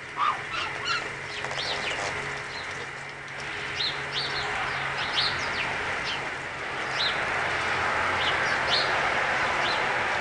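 Toulouse and other domestic geese with a Canada goose pecking feed off a brick patio, a steady gritty pecking. Short high chirps repeat every second or so over it.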